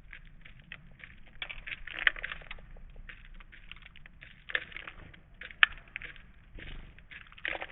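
Birds pecking and cracking seed at a bird feeder: irregular rapid clicks and crackles, with a few sharper taps.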